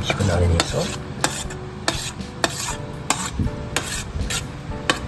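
Metal fork clinking and scraping against a metal tray of wet cat food, a string of sharp, irregular ticks, while kittens eat from the tray.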